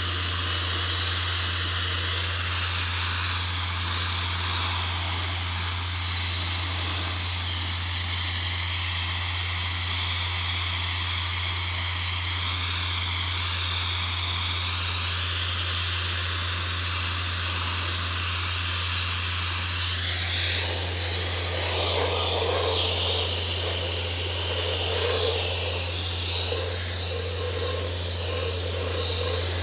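Sandblasting nozzle blasting abrasive against a forklift's painted steel body: a loud, steady rushing hiss over a steady low hum. About twenty seconds in the hiss turns coarser and rougher as the blast works the lower rear of the machine.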